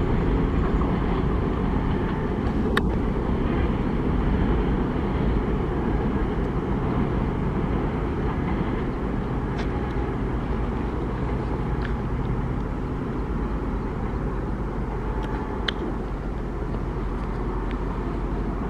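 Double-stack container freight train rolling away, a steady low rumble of wagons on the track that slowly fades as the brake van recedes, with a few brief sharp clicks from the wheels and rails.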